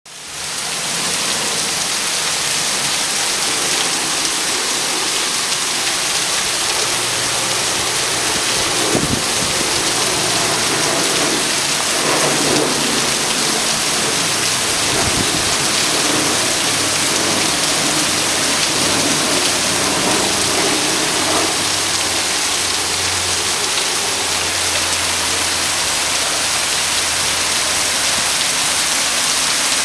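Heavy rain pouring down steadily, with low rumbles swelling now and then, about nine and fifteen seconds in and again later.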